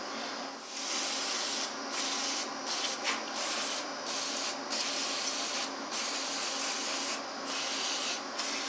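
Aerosol brake cleaner hissing out of the can's extension straw in a long series of sprays broken by short pauses, washing oily debris off the carburetor of an Echo PAS225 two-stroke power head.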